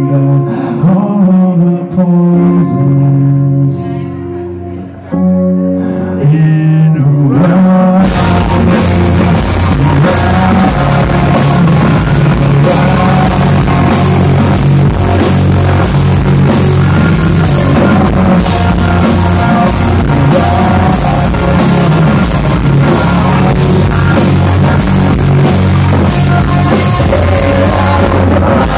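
Live rock band playing loud in a club: a sparser guitar passage for the first eight seconds or so, then the full band comes in with drums, heavily distorted electric guitars and bass.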